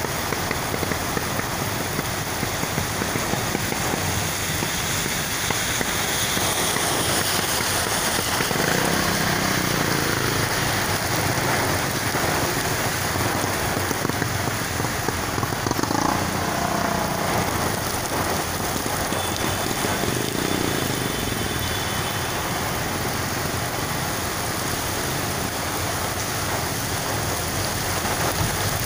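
Heavy rain pouring steadily onto the road and vegetation, with the hiss of traffic on the wet road swelling and fading as cars pass.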